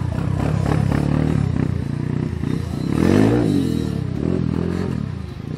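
Motocross dirt bike engines running on the track, their pitch climbing and dropping as the riders work the throttle. About three seconds in, one bike gets loudest as its engine revs up and back down.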